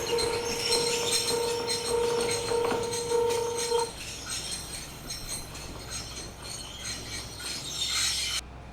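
Takachiho Railway train running on the track, with a steady squeal from the wheels and metallic clatter that stops about four seconds in. It then runs on more quietly until the sound cuts off abruptly near the end.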